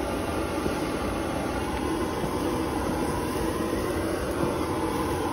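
Handheld butane torch burning with a steady, even rushing hiss, its flame played over steaks on a charcoal grill.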